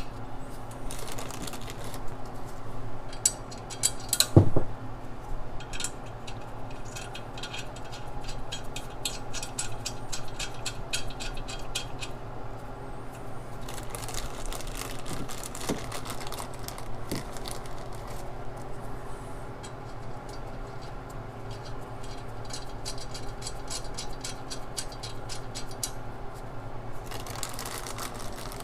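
Hand ratchet clicking in quick runs as new steel exhaust studs are threaded in, going in smoothly without resistance. A single sharp metal knock about four seconds in, with a few lighter knocks later.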